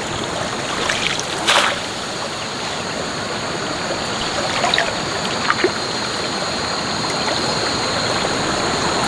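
Steady rush of flowing floodwater in a grassy ditch, with a sharp splash or rustle about a second and a half in and a few small splashes as someone wades and lays a mesh fish trap in the water.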